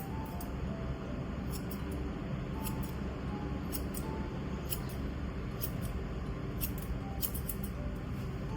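Grooming scissors snipping through a dog's coat in quick, irregular snips.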